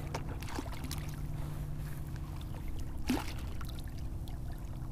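Small splashes and trickling water around a kayak as a hooked shark swims and thrashes at the surface beside it, with one louder splash about three seconds in.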